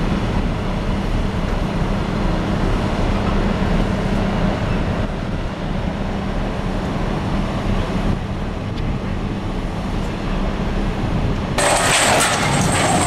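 Steady low hum and rumble of the ship's crane and harbour machinery while it holds a Caterpillar 793 haul truck. About eleven and a half seconds in, a sudden loud crash and clatter of steel starts and keeps going: a lifting chain has broken and the truck drops hard onto the deck.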